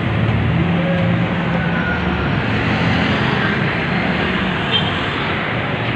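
Street traffic noise: a vehicle engine running close by with a wavering low hum, over a steady din.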